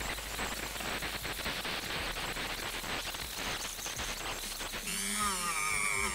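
Rotary tool with a small wheel attachment scrubbing rust and dirt off the teeth of a rusty bevel gear: a steady scratchy hiss. Music comes in about five seconds in.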